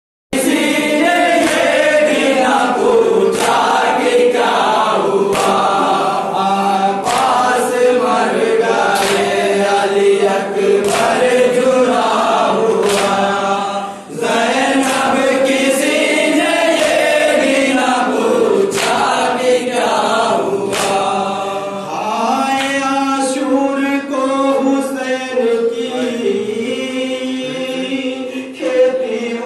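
A group of men chanting a nauha, an Urdu Muharram lament, in unison behind a lead reciter on a microphone. Sharp slaps about once a second keep time, the mourners' chest-beating (matam).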